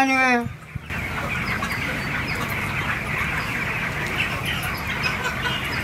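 Chickens clucking, many at once: a steady, busy chatter that sets in about a second in.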